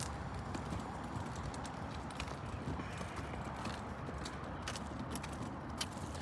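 Footsteps of people walking, with irregular sharp clicks over a steady low background noise.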